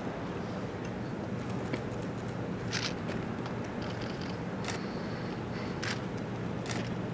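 A camera shutter clicks four times, single frames a second or two apart, over a steady low hum.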